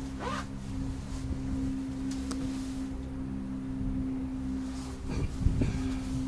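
Moving gondola cabin's steady humming tone over a low running rumble, with a few brief swishing noises about half a second in and again near the end.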